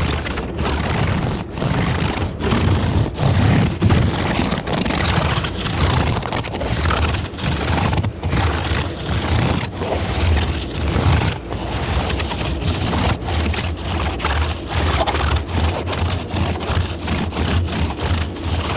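Close-miked scratching and rubbing directly on the microphone, an ASMR trigger: a continuous rough scraping with a heavy low rumble, broken by brief pauses that come quicker near the end.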